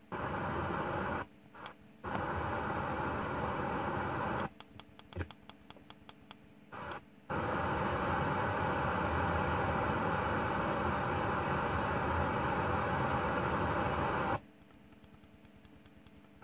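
FM radio's speaker giving a steady hiss of static. It cuts out to near silence three times as the tuner steps between frequencies, with a few clicks in the second gap. The hiss continues while a signal is shown on a More Radio Sussex frequency, the sign of the station transmitting noise because its studio-to-transmitter link has failed.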